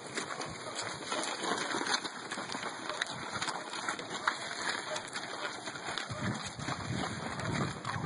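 Footsteps and hooves scuffing over straw-strewn dirt as people and cattle move around a pen: an uneven run of small scuffs and crackles over a noisy rustle.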